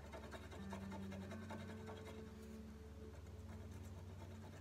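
A scratch-and-win card's coating being scratched off with quick, repeated rubbing strokes. Low steady tones run underneath.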